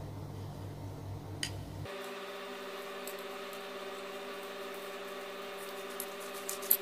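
A steady hum with a few faint clicks of a screwdriver working the screw terminals of a switch board. About two seconds in, the low rumble drops out and a steadier hum with a few level tones takes over.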